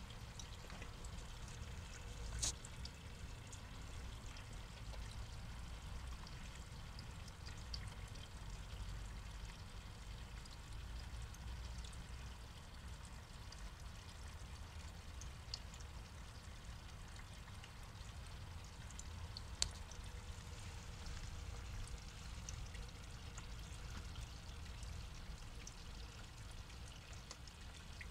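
Steady trickle of water running into a small pond, with two sharp clicks, one a couple of seconds in and one past the middle.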